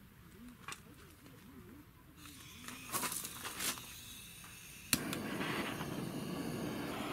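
Fire being lit in a camping fire pit of dry firewood. There are a few faint clicks and some hissing, then a sharp click about five seconds in, followed by a steady rushing noise of flame.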